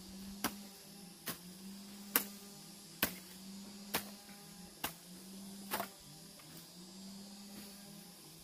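Seven sharp knocks in an even rhythm, just under one a second, that stop about six seconds in, over a faint steady hum.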